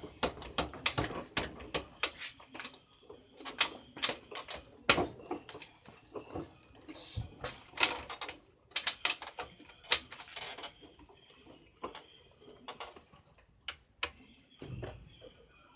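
Irregular metallic clicks, clacks and knocks of motorcycle parts being handled and turned by hand: the freshly reassembled clutch basket and kick-starter ratchet of an IZh Planeta.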